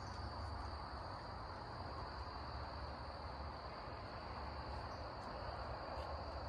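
A faint, steady chorus of insects, one continuous high trill, with a low background rumble beneath it.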